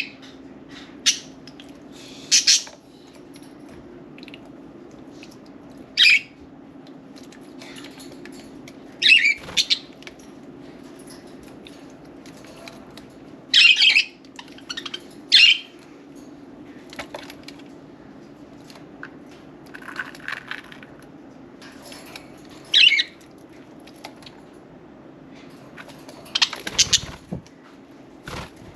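Pet budgerigars giving short chirps and squawks, a single call or a quick cluster every few seconds.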